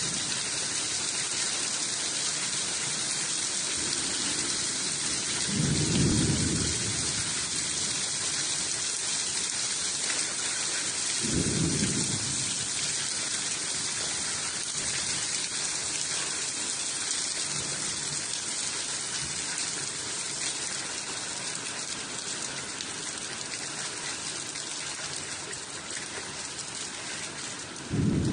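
Steady rain hiss, with a few short low rumbles: one about six seconds in, one about eleven seconds in, and a louder one near the end.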